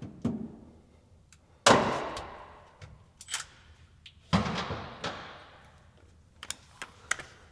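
Two loud metal bangs about two and a half seconds apart, each ringing out for over a second, with a few light tool clicks between: wrench work on the bolts holding a toolbox in a pickup bed.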